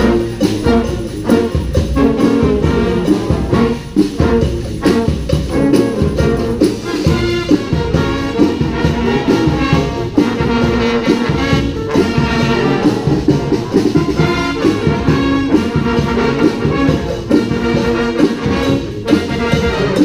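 Street brass band of trombones, trumpets and other horns playing a funky groove over a steady drum beat.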